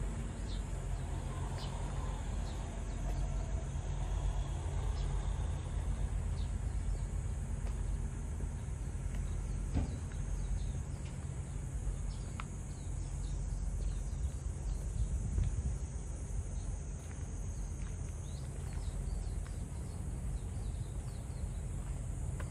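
Outdoor ambience: a steady low rumble under a thin, high, steady insect buzz, with a few short bird chirps and the odd click.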